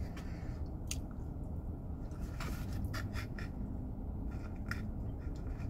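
Soft chewing with a few scattered mouth clicks, over a steady low hum inside a car cabin.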